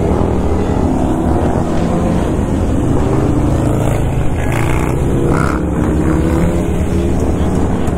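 Motorcycle engines running steadily on the move, with the rider's own bike loudest, over a constant rush of wind and road noise.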